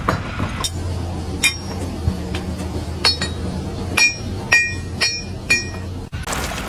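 Sharp metallic strikes, about eight of them, each ringing briefly. They come faster in the second half, about two a second. A low steady hum runs under them.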